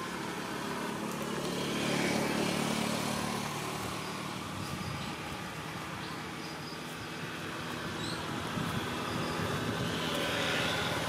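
A motor vehicle's engine passing, growing louder about two seconds in and then fading, over a steady outdoor background hiss.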